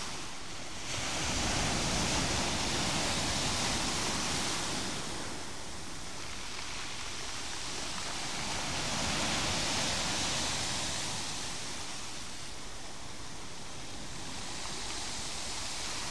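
Sea waves breaking and washing up a stony shore: a steady surf rush that swells twice, about two seconds in and again about nine seconds in.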